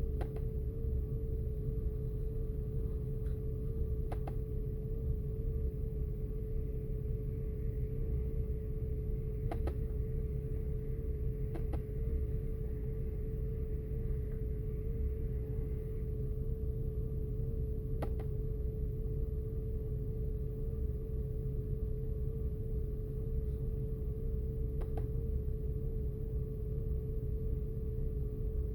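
Audi A8's 6.0-litre W12 engine running with a steady low rumble and a constant hum, misfiring on cylinders in both banks; a few faint clicks sound throughout.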